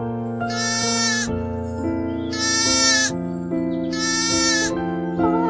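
A lamb bleating three times, each call lasting under a second, over background music.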